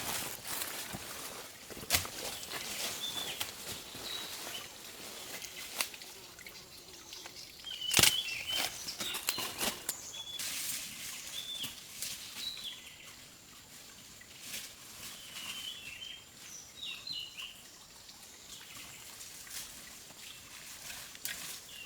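Birds chirping now and then over outdoor ambience, with a few sharp knocks, the loudest about eight seconds in.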